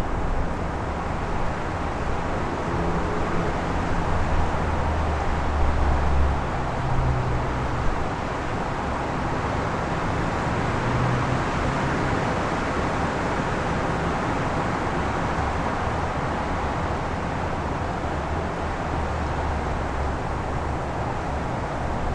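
Strong wind blowing as a steady rushing noise, with heavier gusts bringing low rumbling swells about three seconds in and again near the end.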